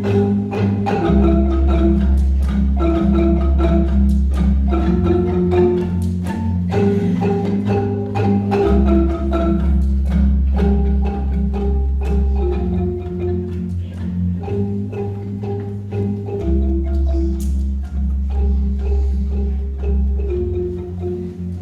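Marimba ensemble playing a lively repeating pattern: quick mallet strikes on the higher marimbas over low, held bass marimba notes.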